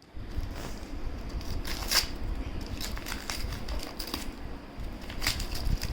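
Handling noise: irregular clicks and rustling over a low rumble, the sharpest click about two seconds in.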